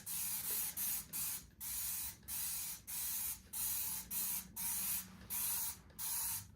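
Hand trigger spray bottle of Dawn Powerwash dish soap being pumped over and over. Each squeeze gives a short hiss, about two a second, with brief gaps between.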